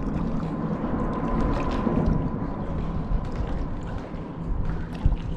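Wind on the microphone and water lapping against a fishing boat's hull, with a faint steady high hum during the first few seconds.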